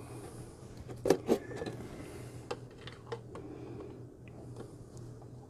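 Light clicks and taps of plastic being handled, a paintbrush and a cut plastic bottle against a plastic enclosure, with a sharper pair about a second in and a few softer ticks later, over a low steady hum.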